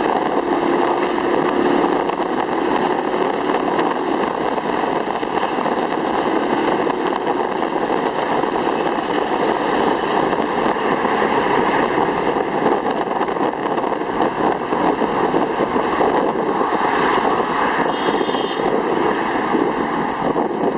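Three-wheeled motorcycle running steadily along a city street, heard from the passenger seat: an even rush of engine, road and wind noise with surrounding traffic.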